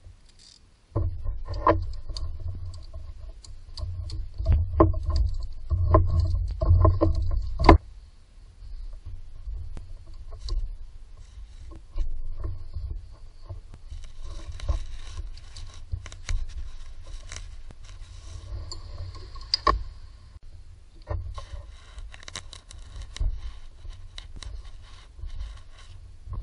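Hand work in a car's engine bay: scraping, clicking and knocking of tools and parts. A loud low rumble with knocks runs from about a second in and cuts off suddenly about eight seconds in, followed by quieter scattered clicks and scrapes.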